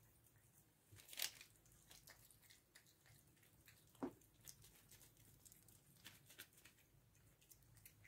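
Faint, quiet cats chewing and licking wet cat food from a stainless-steel bowl: soft wet clicks and smacks, with a louder click about a second in and another about four seconds in.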